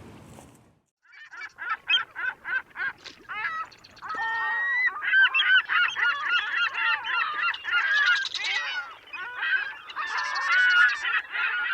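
A flock of birds calling. At first the calls come separately, about four a second; from about four seconds in they turn into a dense chorus of overlapping calls.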